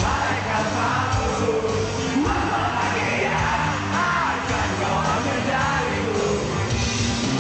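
Rock band playing live, with a lead vocal sung and yelled over the full band.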